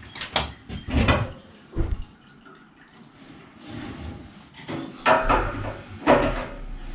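Scattered clunks and knocks as a fuel nozzle and hose are handled and hung back up on a wall-mounted fuel tank, with a quieter stretch in the middle.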